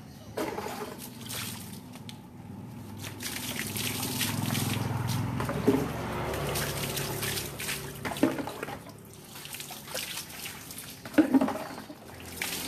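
Water scooped from a plastic bucket and poured over a dog's coat, trickling and splashing onto the wet ground as the shampoo is rinsed off. The pouring is heaviest in the middle, with a few short sharp knocks.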